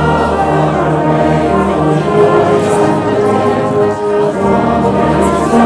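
A brass band playing while a large crowd sings along in unison, with sustained notes and chords throughout.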